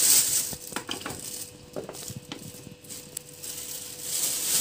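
Thin plastic bag crinkling as it is handled and filled with cut pumpkin cubes, loudest at the start and again near the end, with a few light knocks and clinks in between.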